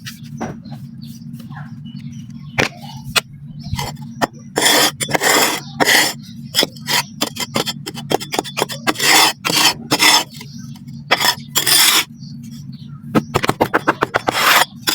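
Black sand clumps being crumbled and crushed, giving irregular gritty crunching bursts in quick succession, some short and some lasting about half a second, over a steady low hum.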